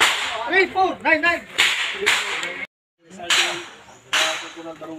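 Several pistol shots, spaced about a second apart, each with a long echo trailing off the range berms.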